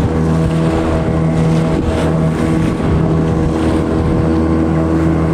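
A small fishing boat's engine running steadily at an even pitch, with water and wind noise around it.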